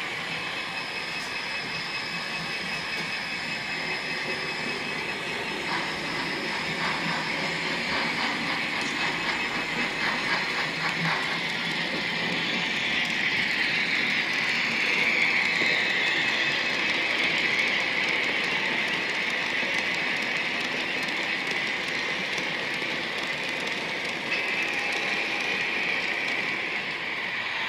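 Märklin model train running on its track: a steady electric-motor whine with the wheels clicking over rail joints and points. A quick run of clicks comes about six to eleven seconds in, and the motor's pitch slides down midway as the train changes speed.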